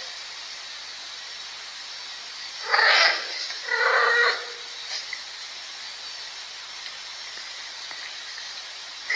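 Cat yowling a mating call: two loud drawn-out yowls about a second apart, some three seconds in, over a faint steady hiss.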